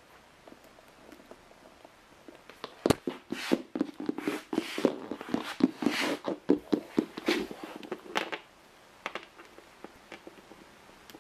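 Plastic toy horse's hooves tapping on the floor as it is walked along: a run of quick uneven clicks, several a second, that starts about three seconds in and stops around eight seconds in.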